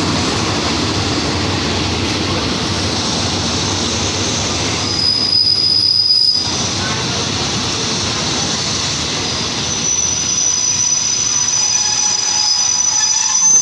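Passenger train rolling slowly into a station, wheels rumbling on the rails, with a high-pitched brake squeal about five seconds in and again from about ten seconds in as it slows to a stop.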